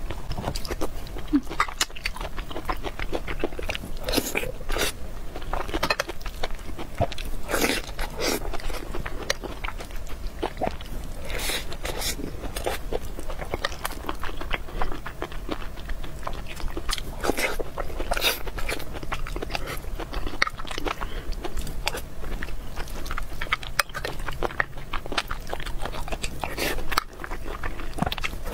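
Close-miked, irregular chewing and mouth clicks from a person eating a mouthful of braised eggplant and rice with sour-spicy chicken giblets, along with a spoon scooping from a glass bowl.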